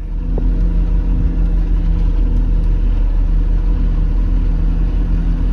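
Mercedes-Benz Vario 818 expedition truck's diesel engine running steadily, a loud even rumble that starts abruptly.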